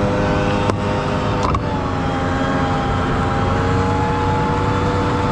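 New Holland TC56 combine harvester's engine running steadily close by, with two sharp clicks about a second and a second and a half in.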